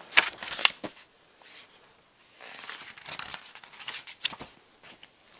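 A child flipping and handling the paper pages of a picture book: a quick run of sharp page flaps in the first second, then a stretch of paper rustling with a sharp flap near the end.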